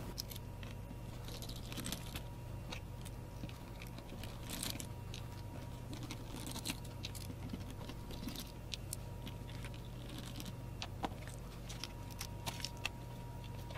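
Quiet handling noises: scattered light clicks, taps and rustles from an opened plastic power bank case and its flat pouch battery being moved about by hand, over a faint steady hum.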